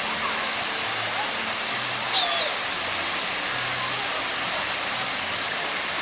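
Water-park shower: a steady cascade of water falling from overhead and splashing into a shallow pool. A short high-pitched squeal about two seconds in.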